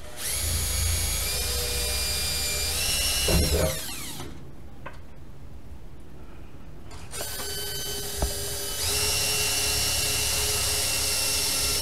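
Cordless drill boring holes in a truck-bed swing-out toolbox. It runs twice, for a few seconds each time. Its whine rises and steps up in pitch as the trigger is squeezed, then winds down in the pause between runs.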